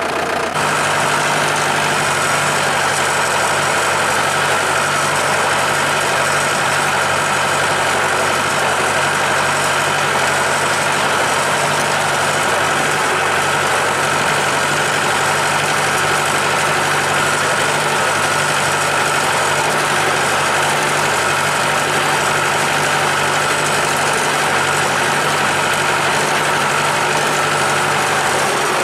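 Tractor engine running steadily at low revs, close by, with no change in speed.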